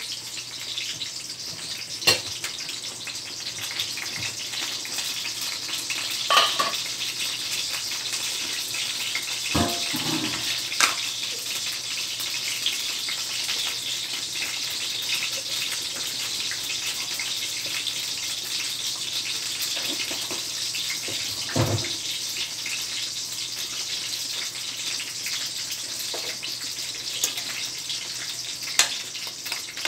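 Steady sizzle of food cooking in oil and sauce in pans on a gas stove, with a few sharp metal clanks as the wok's lid comes off and a spatula stirs the adobo.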